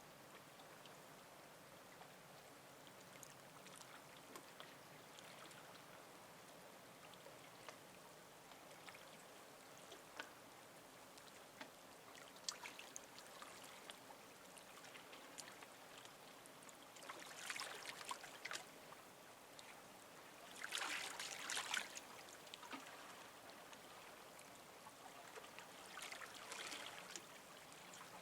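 Faint small waves lapping and splashing at the water's edge. About three louder splashes come in the second half.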